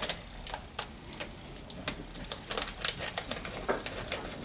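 Rapid, irregular small clicks and crinkles from hands handling foil blind-bag packaging and small plastic pony figures on a tabletop, more frequent in the second half.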